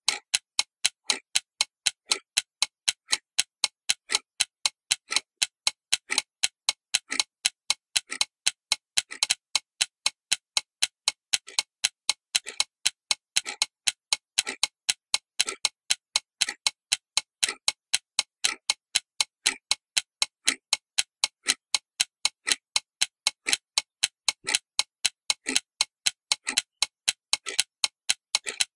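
Steady clock-like ticking: sharp, evenly spaced clicks, a few a second, with dead silence between them.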